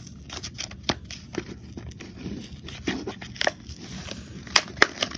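Matchbox toy truck package being opened by hand: irregular crinkling and tearing, broken by sharp snaps and clicks, the loudest few near the end.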